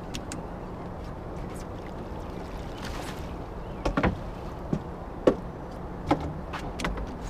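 Aboard a fishing boat: a steady low motor hum, with a few sharp knocks and clunks on the boat partway through, the loudest a little past five seconds in.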